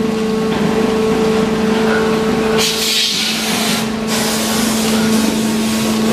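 Plastic injection moulding machine running with a steady hum, and a loud hiss that starts about two and a half seconds in, breaks off briefly and then comes back.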